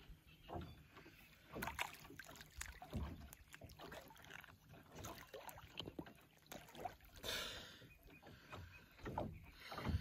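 Small waves lapping and slapping against the side of a small boat, with irregular splashes and light knocks, and a brief louder splash about seven seconds in.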